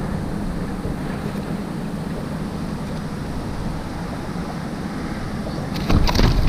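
Steady wind and water noise on the microphone, with a short cluster of knocks and bumps near the end.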